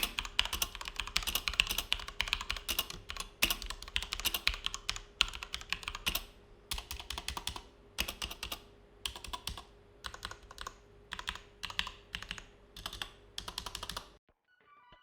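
Typing on a Gigabyte Aorus K1 mechanical keyboard with Cherry MX Red linear switches: a fast, continuous clatter of keystrokes for about six seconds, then shorter runs of keystrokes with gaps between them, stopping near the end.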